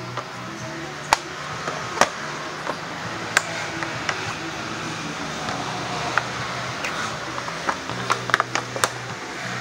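Sharp clicks and knocks of a scooter's plastic body panels and their clips being pried and handled by hand, a few spaced apart and then several in quick succession near the end.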